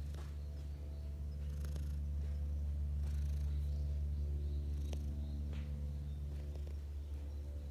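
Tabby cat purring steadily while being stroked, a continuous low rumble that swells a little midway, with a few faint clicks.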